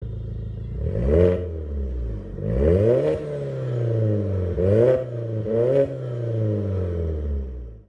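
Car engine idling and revved in four quick blips, each rising in pitch and falling back, cutting off suddenly near the end.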